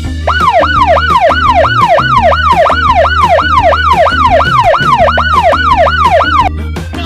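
Fast emergency-vehicle siren sound effect, sweeping down in pitch about three times a second, over background music with a steady bass line. The siren starts just after the beginning and cuts off shortly before the end.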